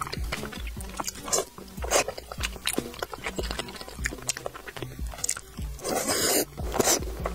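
Close-miked eating sounds of soft spicy braised pig brain: wet mouth clicks and smacking, with a louder slurp about six seconds in as the piece goes into the mouth.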